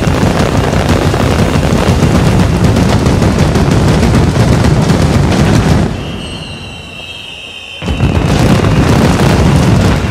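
Percussion ensemble of timpani, snare drums and bass drums playing a loud, dense barrage of rapid hits that imitates the firecracker explosions of a mascletà. About six seconds in it drops to a quieter stretch with a few steady high tones, then the full barrage crashes back in suddenly about two seconds later.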